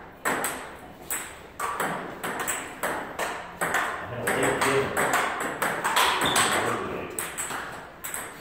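Table tennis rally: the ball clicking off rubber paddles and the table in a quick, steady run of sharp hits, about three a second.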